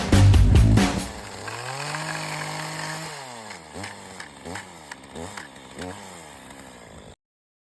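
Chainsaw engine revving: it winds up and holds at speed for about a second and a half, drops back, then gives four or five short throttle blips before cutting off abruptly. Music with a heavy beat plays for the first second.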